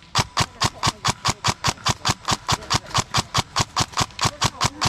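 An engine running at a steady idle, a rapid even beat of about eight pulses a second.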